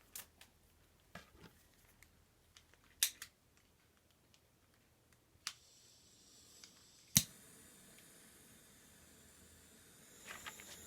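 Blue-Point butane pencil-tip soldering torch: a few sharp clicks, then a loud click about seven seconds in as it lights, followed by the steady hiss of the burning flame.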